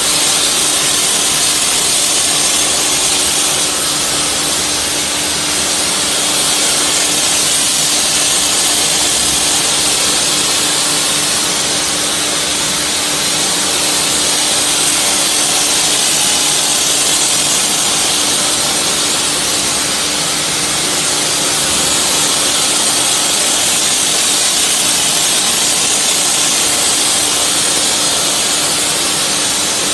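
CNC hot spinning machine running: a loud, steady hum under a strong hiss, swelling and easing slightly every several seconds.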